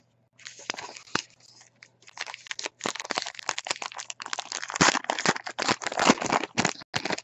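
Wrapper of a 2014 Topps Gypsy Queen baseball card pack being torn open and crinkled by hand: a dense, dry crackling with many sharp crackles, starting about half a second in.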